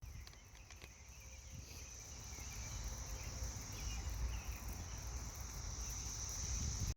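Chorus of Brood X periodical cicadas (Magicicada): a steady, high-pitched drone that fades in over the first few seconds and cuts off suddenly at the end.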